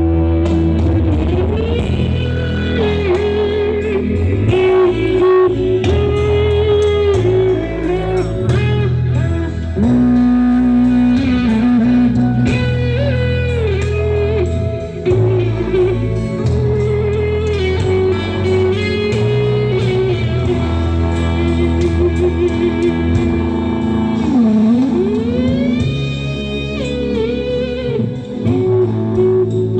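Music played loud through a PA sound system during a sound check: a bending melodic lead line over a steady, heavy bass, with a deep downward-and-up pitch swoop about three-quarters of the way through.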